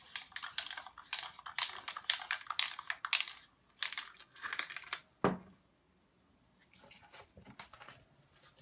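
Aerosol spray paint can spraying in a string of short, uneven hissing spurts for about five seconds, then a single dull knock, then a few faint brief sprays near the end.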